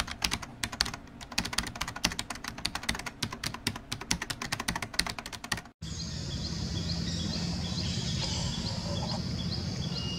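Keyboard-typing sound effect, a quick irregular run of clicks that cuts off abruptly a little before six seconds in. It gives way to outdoor ambience: a steady low rumble with short high chirps repeating a few times a second.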